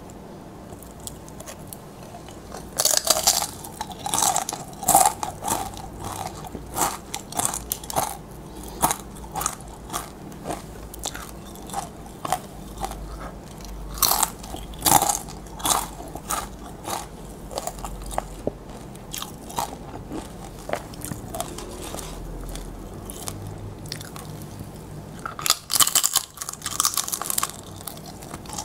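Tortilla chips being bitten and chewed: bursts of loud, crisp crunching about three seconds in, around fourteen seconds and again near the end, with lighter chewing crunches in between.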